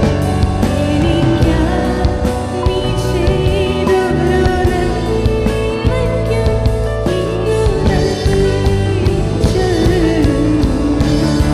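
A woman singing a Malayalam gospel song over full backing music with a steady beat.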